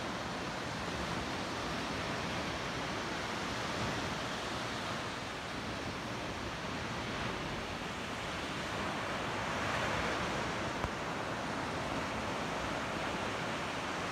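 Ocean surf breaking on a sandy beach: a steady wash of small waves that swells briefly about ten seconds in.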